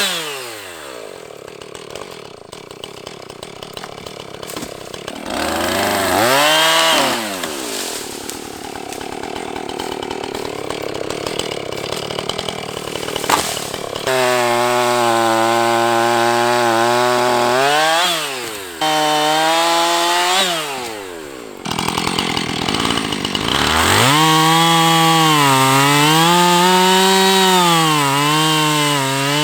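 Two-stroke chainsaw run up to full throttle several times and held for a few seconds each, its pitch wavering and sagging as it cuts into a large tree trunk, then dropping back to idle between runs.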